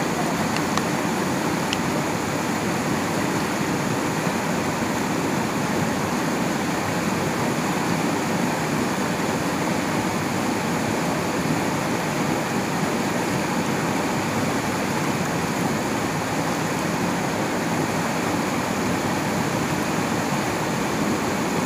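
Whitewater rapids of a rocky river rushing over and between boulders, a steady, unbroken rush of water.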